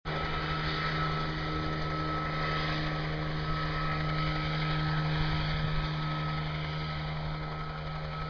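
Helicopter in flight: a steady, unchanging drone with a constant low hum.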